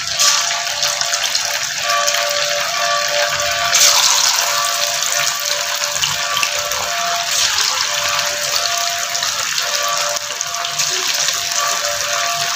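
Marinated, cornflour-coated chicken 65 pieces deep-frying in hot oil in a steel kadai, sizzling steadily. The sizzle flares louder as a piece is dropped in at the start and again about four seconds in.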